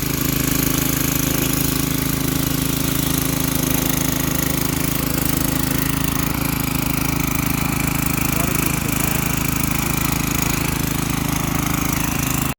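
Troy-Bilt edger's Briggs & Stratton 500e single-cylinder engine running steadily, now running after a replacement carburetor was fitted. The sound cuts off suddenly near the end.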